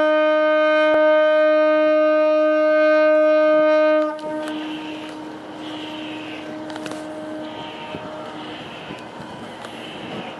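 Ship's horn of the high-speed catamaran ferry Jessica W sounding one long blast on a single steady note of about four and a half seconds, the prolonged blast a vessel gives when leaving its berth. It cuts off abruptly and echoes away across the harbour, leaving a quieter steady background noise.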